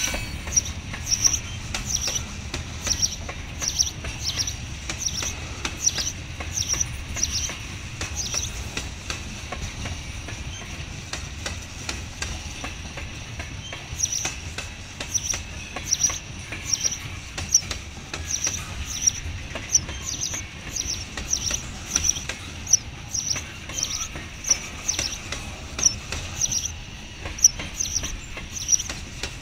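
Freight train of tank cars rolling past: a low steady rumble with scattered clicks and knocks. Over it a bird chirps, short high chirps about twice a second that pause for several seconds in the middle.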